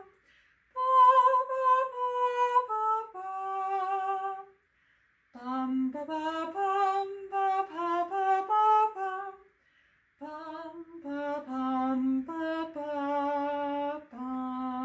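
A woman singing an unaccompanied triple-meter melody on neutral syllables like "bum" and "ba", in three phrases with short pauses between.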